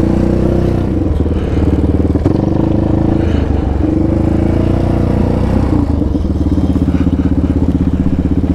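Yamaha Raptor 700 quad's single-cylinder four-stroke engine running at low revs under light throttle, the pitch shifting as the throttle opens and closes. From about six seconds in it settles into an even, pulsing putter.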